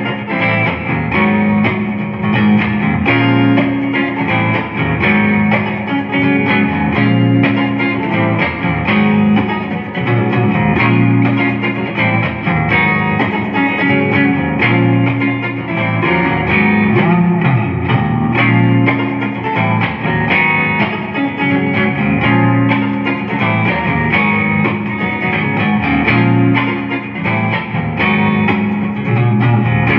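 Electric guitar played clean through a Fender Champion 40 amp with a little reverb: a continuous run of picked notes and chords.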